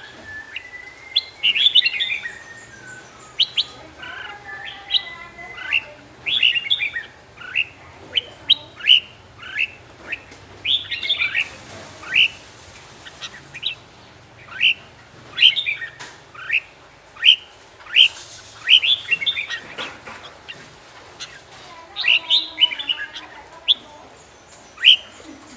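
Red-whiskered bulbul singing: a long run of short, loud whistled phrases, about one a second, each note sliding sharply down in pitch.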